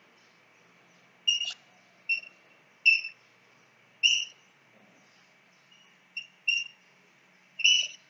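Chalk squeaking on a blackboard while writing: about seven short, high-pitched squeaks at irregular intervals.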